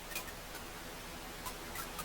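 Wood fire burning in a fireplace: a handful of sharp, irregular crackles and pops over a soft steady hiss.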